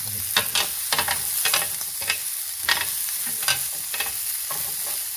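Capsicum and onion strips sizzling in a hot ridged grill pan, with metal tongs tossing them and clicking against the pan about a dozen times at irregular intervals.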